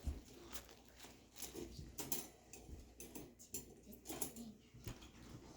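Faint clicks and light clinks of metal can-rack shelves being handled and fitted into the rack's frame, a scattering of short taps.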